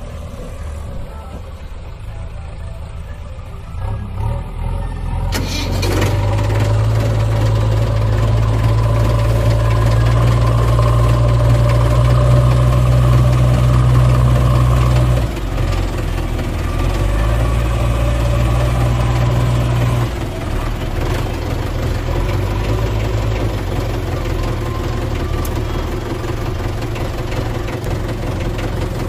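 An engine idling with a steady low drone. It comes in louder about five seconds in, dips briefly about fifteen seconds in and drops back a little at about twenty seconds.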